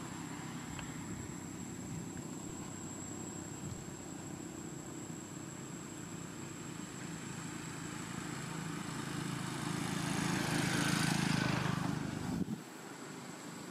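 Road traffic: a steady low motor-vehicle engine drone, with the noise of a passing vehicle swelling toward the end and then cutting off abruptly.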